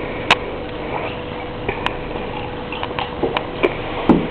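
A plastic gallon milk jug and a plastic cup being handled while milk is poured: a few light clicks and knocks, more frequent toward the end, over a steady hiss.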